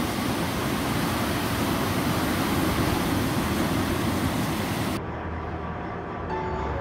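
Surf breaking and washing over a rocky shore, a loud steady rush. About five seconds in it cuts off abruptly to a low hum, with a few notes of background music starting near the end.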